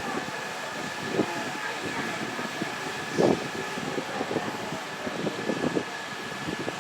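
Riverboat under way: a steady engine hum with a thin high whine, wind buffeting the microphone, and irregular low thumps, the loudest about three seconds in.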